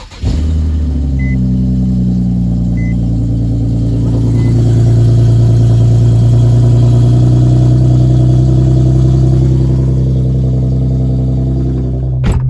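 Infiniti G37's 3.7 L V6 cold-starting: the starter cranks briefly, then the engine catches and settles into a loud, steady fast idle. The owner judges that the exhaust leak is now fixed.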